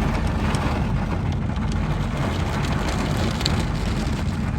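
Rain falling steadily, with scattered drop ticks over a steady low rumble.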